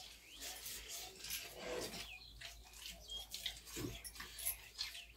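Close eating sounds: wet chewing and lip smacks as rice and bharta are eaten by hand, with many short crackling clicks.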